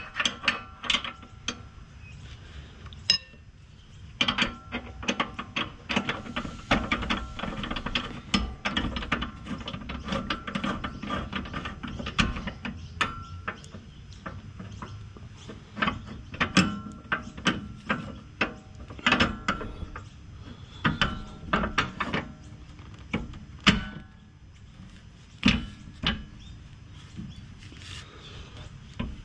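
Hand socket ratchet clicking in quick runs as the bolts of a rear sway bar's mounting brackets are done up, with metal clinks of the socket against the bracket and a few louder knocks.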